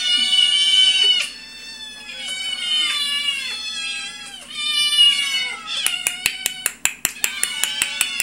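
Several kittens meowing together in a chorus of high, overlapping calls that slide up and down in pitch. From about six seconds in, a rapid run of sharp clicks or taps joins the meowing.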